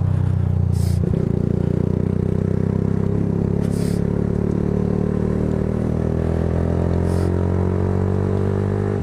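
Motorcycle engine running steadily while ridden, its pitch rising slowly over several seconds as it picks up revs, with a short knock about a second in.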